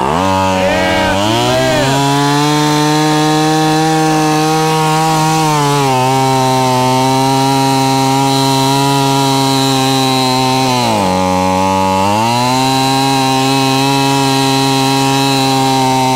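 Two-stroke chainsaw, running on straight gasoline with no oil in the mix and no air filter, catching after being pulled and running steadily at a fast idle. Its engine speed rises as it settles, drops slightly about six seconds in, sags more deeply around eleven seconds, then picks back up.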